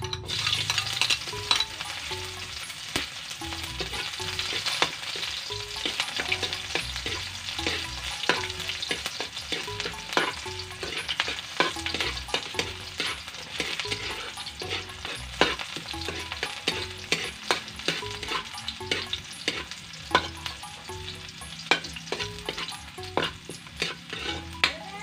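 Chopped takway (taro runners) sizzling as they hit a hot steel wok and fry, while a metal spatula stirs them, clicking and scraping against the pan many times.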